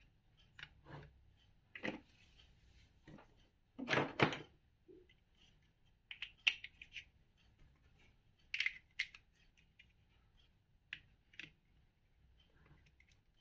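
Plastic building bricks being handled and pressed together: scattered small clicks and short clatters, the loudest a double clatter about four seconds in.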